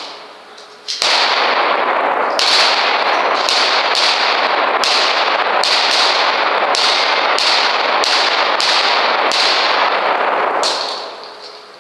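A rapid string of about a dozen pistol shots, each ringing out with a long echo in an indoor shooting range, starting about a second in and stopping near the end.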